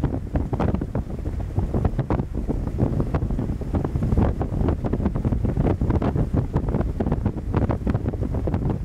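Wind buffeting the microphone in irregular gusts aboard a ship under way. The noise is heaviest at the low end.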